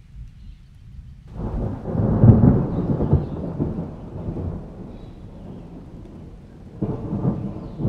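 Thunder: a sudden clap about a second in swells into a loud rumble and fades over a few seconds. A second, shorter rumble of thunder follows near the end.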